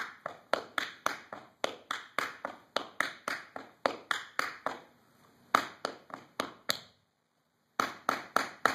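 Tap shoes striking a wooden floor in a run of sharp taps, about three a second, as a tap dancer demonstrates a choreographed sequence of steps. The taps pause briefly about seven seconds in, then four quick taps follow near the end.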